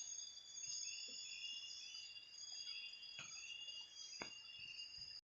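Insect chorus of crickets or similar insects: several steady high-pitched trills overlaid by a short chirping call repeated about twice a second. A couple of faint clicks come in near the end.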